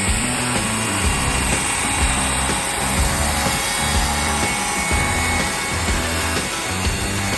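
Background music with a steady bass line over a chainsaw cutting into wood.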